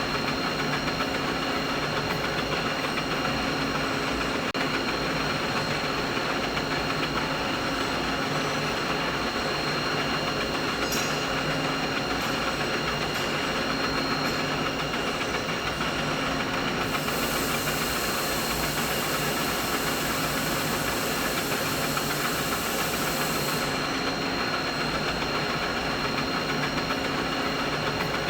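Steady machinery noise: a constant mechanical hum with several fixed tones over a dense rumbling haze. From about 17 seconds in, a high hiss joins it for about seven seconds and then cuts off suddenly.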